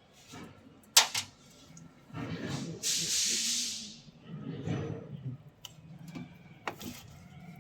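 A sharp click, then a hiss lasting about a second, among scattered clatter and handling noises.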